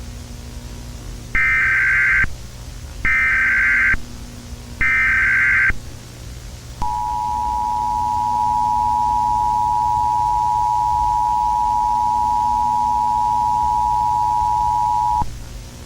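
Emergency Alert System signal: three short bursts of SAME digital header data, about a second apart. Then the two-tone EAS attention signal (853 and 960 Hz) sounds as a steady beep for about eight seconds and cuts off, announcing an emergency alert.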